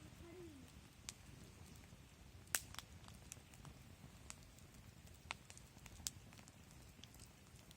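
Wood fire crackling quietly: irregular sharp pops and snaps, the loudest about two and a half seconds in, over a low steady rumble of the burning fire.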